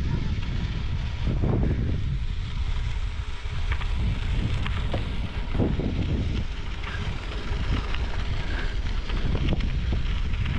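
Wind buffeting the microphone of a camera mounted on a gravel bike being ridden along a dirt track: a steady, fluttering rumble with a hiss of rolling noise on top and occasional light clicks.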